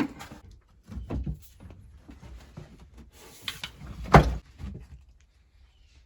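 Knocks, clunks and scraping of sewer pipe and fittings being handled and fitted together, with a cluster of knocks about a second in and one sharp knock, the loudest, about four seconds in.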